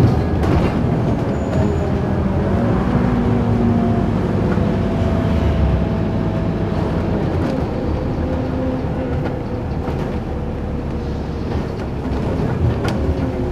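Inside a Scania OmniCity single-deck bus on the move: steady diesel engine and road noise with a faint whine that drifts slowly in pitch, and a few short rattles from the body and fittings.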